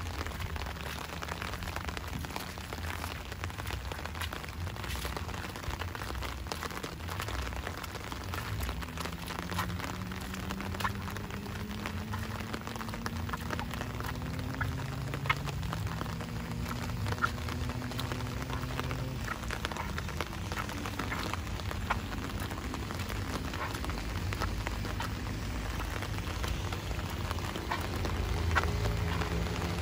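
Steady rain falling, with many scattered sharp drop ticks. Through the middle, a faint low hum slowly rises and falls in pitch under the rain.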